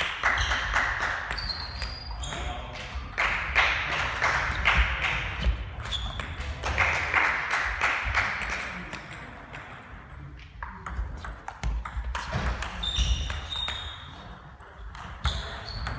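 Table tennis balls clicking off bats and tables at several tables in a large sports hall, an irregular patter of sharp ticks and short pings, with players' voices talking and calling in between.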